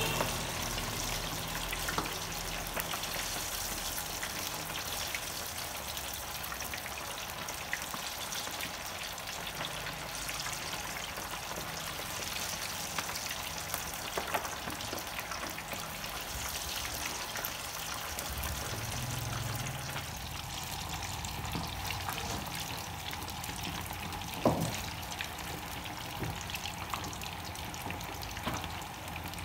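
Chicken pieces deep-frying in a wok of hot oil: a steady sizzle with dense crackling. There is one sharp knock a few seconds before the end.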